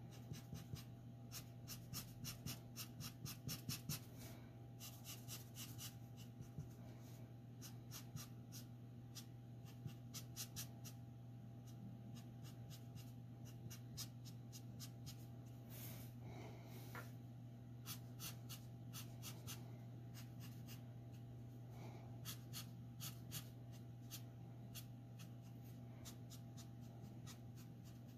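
Copic alcohol marker nib scratching faintly on paper in quick, short strokes, coming in clusters of rapid ticks several times a second, over a steady low hum.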